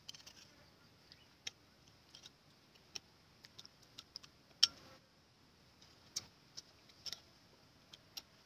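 Metal spoon stirring a chili dipping sauce in a cut-glass bowl, with scattered light clinks of spoon against glass; the sharpest clink comes a little past halfway.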